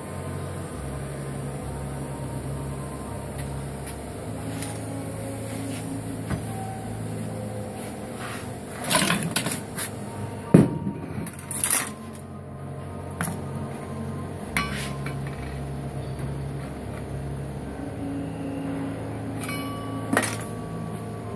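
A steady machine hum whose low tones switch on and off every few seconds, under metal clanks and knocks as the welded steel pipe-and-flange piece is handled and taken out of a bench vise. The clanks bunch up between about nine and twelve seconds in, and near the end there is one more clank with a short metallic ring.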